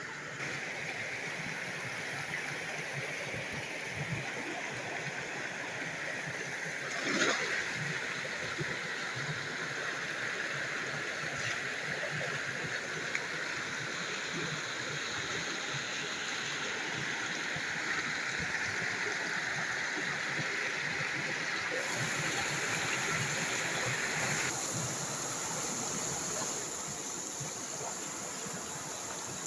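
Shallow stream running over rocks: a steady rush of flowing water, with a short louder sound about seven seconds in.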